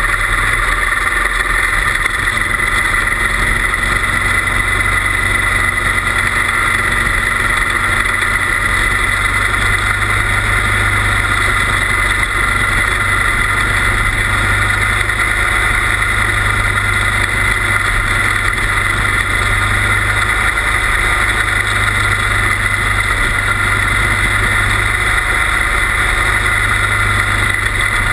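Quarter midget race car's small single-cylinder engine running hard and steady around an oval, heard from on board the car, with constant loud engine and air noise and no big changes in pitch.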